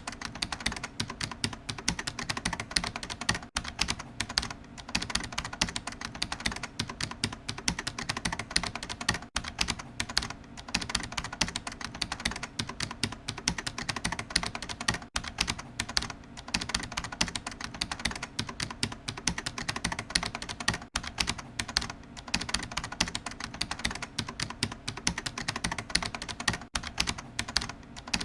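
Fast, continuous typing on a computer keyboard: dense, irregular key clicks with only a few brief pauses.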